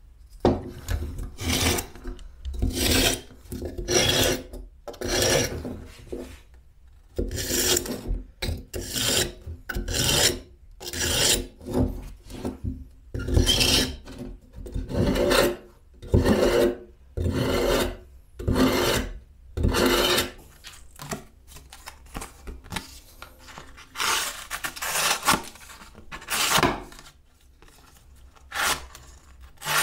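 A steel kitchen knife blade drawn again and again through a homemade V-sharpener made of two small abrasive grinder-disc pieces bolted to a wooden block. Each pull is a short rasping scrape; the scrapes come about one a second, in runs with short pauses between them.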